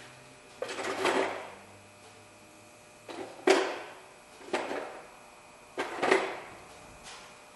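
Four short bursts of clattering and scraping as brake hardware and tools are handled, spaced a second or two apart.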